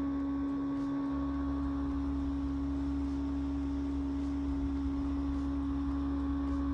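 Boat engine running at a steady cruising speed while under way: an even hum with a low rumble beneath it.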